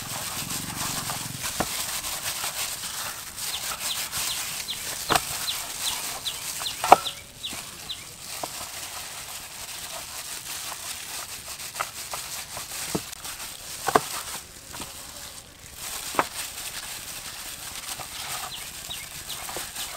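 Gloved hands working marinade into raw chicken legs on a metal tray, with a few sharp taps against the tray, the loudest about seven and fourteen seconds in. Behind it, chickens peep and cluck in short falling chirps, mostly in the first seven seconds and again near the end, over a steady high hiss.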